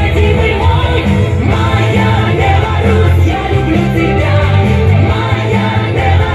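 Loud background music: a rock-style song.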